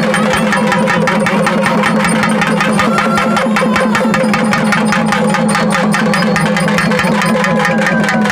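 Naiyandi melam folk band playing: a nadaswaram plays a gliding reed melody over a steady buzzing low drone, with rapid, even drumming on thavil barrel drums throughout.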